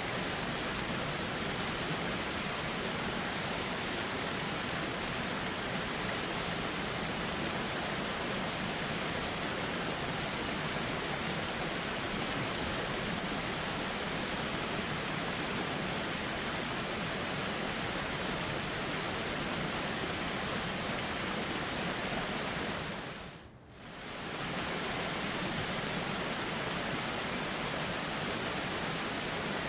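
Steady rushing of flowing river water, with a brief dip where the sound fades down and back up about three-quarters of the way through.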